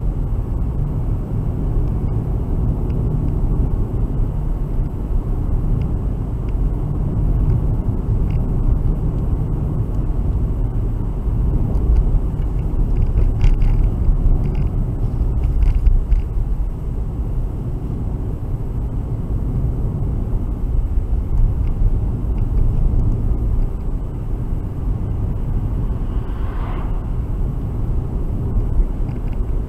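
A car driving at road speed, heard from inside the cabin: a steady low rumble of tyres and engine.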